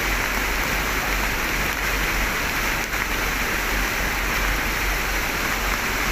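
Heavy rain pouring down steadily, an even hiss, with a low rumble underneath.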